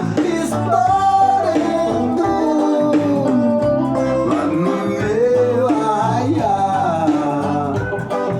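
A song with plucked guitar and a singing voice that glides between notes.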